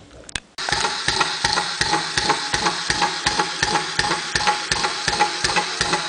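K'NEX Hopper walking toy switched on about half a second in, its small electric motor whirring steadily while its plastic gears and legs knock about five times a second. Rubber sticker pads are stuck under the motor to damp the noise.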